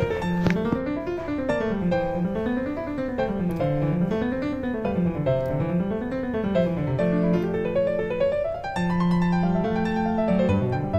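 Background piano music: quick runs of notes climbing and falling over and over, with a held low note under them now and then.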